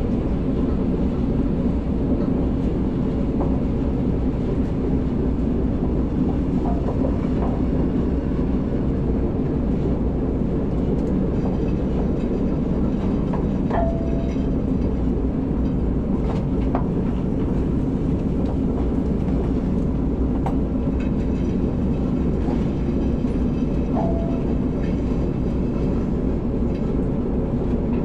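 Steam locomotive rolling slowly during a shed shunt, heard from between its frames beside the inside motion: a steady low rumble with a few short squeaks and clicks.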